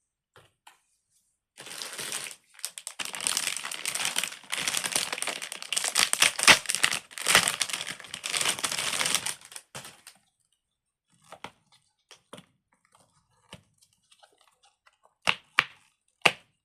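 Plastic packaging crinkling and tearing for about eight seconds as a fidget toy is handled, then a few faint clicks and, near the end, several sharp pops.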